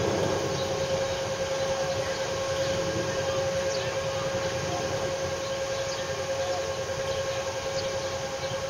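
A lake freighter's machinery running steadily while it lies in a canal lock: a constant drone with a steady hum tone over a low rumble.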